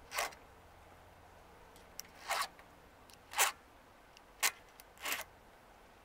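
Round chainsaw file rasping across a chain's cutter teeth in five short filing strokes, about one a second, sharpening the chain.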